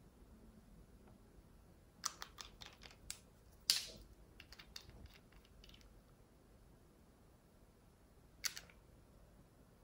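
Light plastic clicks and taps of small nail-polish bottles and their caps being handled: a run of clicks from about two to six seconds in, the sharpest near four seconds, and one more click near the end.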